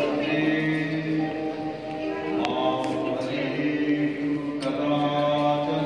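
Devotional music: voices singing or chanting long held notes over a steady sustained tone, with a few sharp clicks about two and a half and three seconds in.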